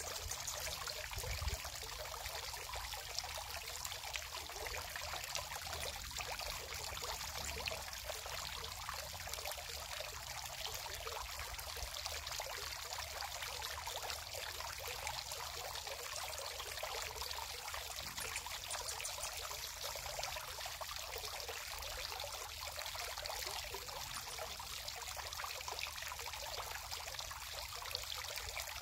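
Steady, even rushing like running water, with no breaks.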